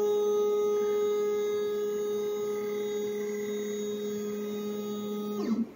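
Stepper motors of a Shapeoko XXL CNC whining steadily as the gantry makes a rapid jog move across the bed. The whine stops suddenly near the end, when the move finishes.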